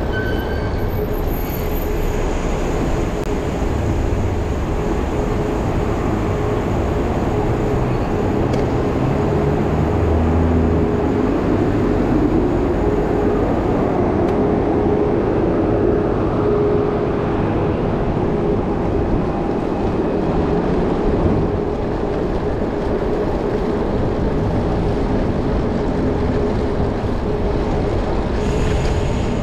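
Steady, loud rumbling street noise heard from a moving bicycle in city traffic, with a constant humming tone.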